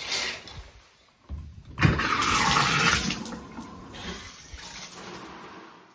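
Shower water spraying from the shower head, loud for about a second just under two seconds in, then running on more quietly.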